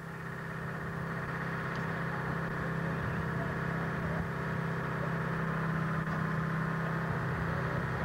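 Crane engine idling steadily, an even mechanical hum.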